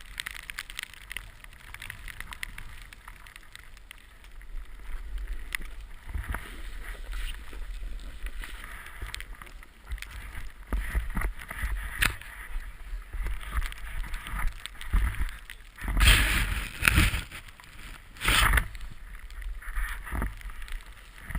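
Snowboard sliding and scraping through snow, with wind buffeting the board-mounted camera's microphone. There are two louder rushes about 16 and 18 seconds in.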